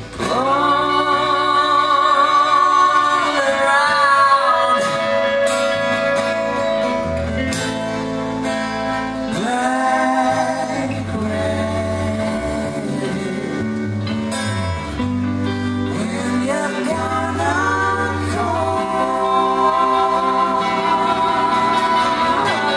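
Live band playing: a lead vocal sung in long held notes over acoustic and electric guitars, bass guitar and drums.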